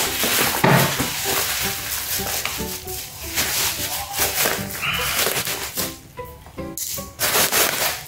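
Black plastic bubble mailer crinkling and rustling as it is pulled open and handled, loudest again shortly before the end, with background music playing underneath.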